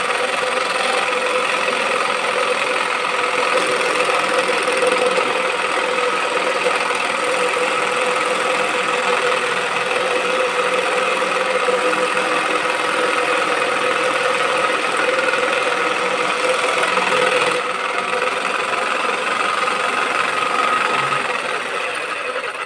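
Electric scroll saw running steadily, a little quieter for the last few seconds.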